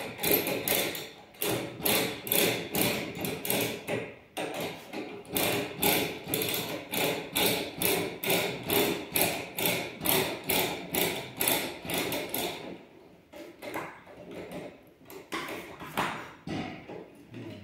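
Van's jack being cranked down by hand, a metallic clink on every turn of the handle, about two or three a second. The clinks thin out and turn irregular near the end.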